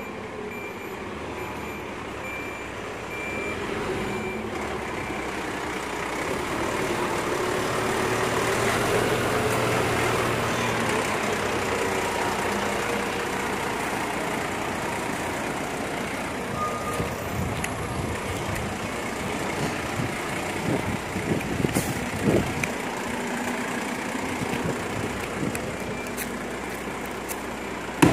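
Volvo FE 300 refuse truck's diesel engine running as it manoeuvres, its reversing alarm beeping and the engine dropping and rising in pitch. Short knocks and clatters come in the last several seconds.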